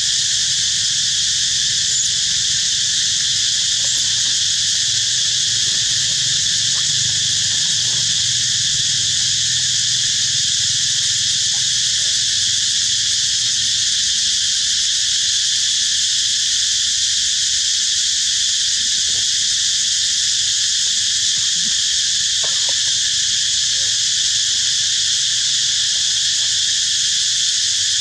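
Dense insect chorus, a steady high-pitched drone that holds at one level without a break.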